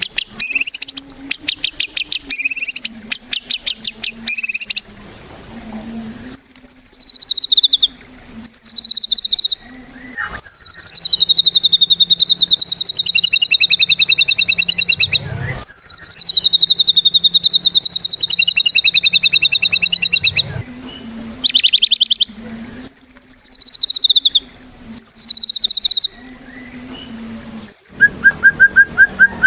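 White-rumped shama (murai batu) in full, loud song. It gives bursts of rapid, rattling trills and long rippling whistled phrases, one after another. Near the end comes a quick run of lower, evenly spaced notes.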